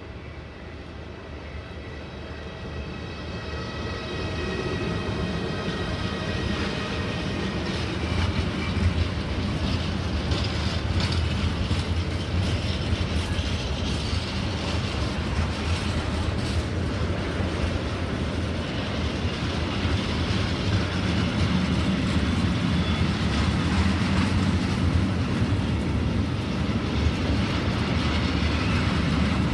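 Electric freight train passing close by: a Siemens Vectron electric locomotive goes by with a steady high whine that fades in the first several seconds, then a long rake of tank wagons rolls past with a steady heavy rumble and sharp clicks of wheels over rail joints.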